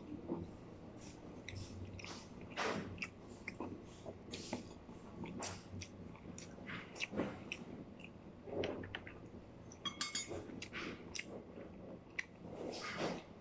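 A person chewing saucy chicken eaten by hand, close to the microphone, with irregular short mouth clicks and a quick run of clicks about ten seconds in.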